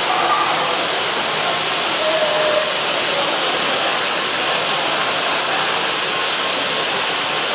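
Steady, loud rushing noise like blowing air, with a faint high whine running through it.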